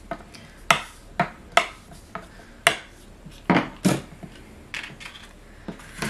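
Black cardstock being folded and burnished along its score lines on a craft mat, with about eight irregular sharp taps and scrapes of paper and tool against the mat.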